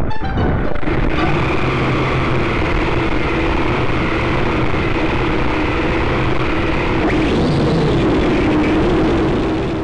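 Syma X5C quadcopter's motors and propellers running in flight, a dense steady buzz with a few steady whining tones, picked up by its own onboard camera. It begins to fade near the end.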